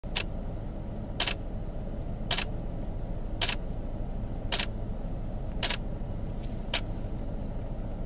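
Camera shutter firing seven times in an even series, about one click a second, taking 1-second exposures, over a steady low rumble.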